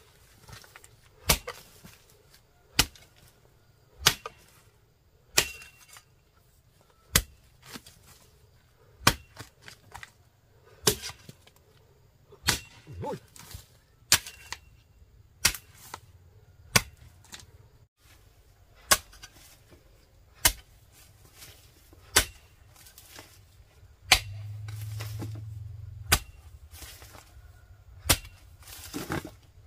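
Steady, repeated sharp blows of a hand tool striking, about one every one and a half seconds. A low hum rises briefly near the end.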